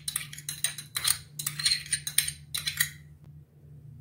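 A metal spoon tapping and scraping a small glass bowl to knock chopped coriander out into a steel mixing bowl: a quick run of clinks that stops about three seconds in.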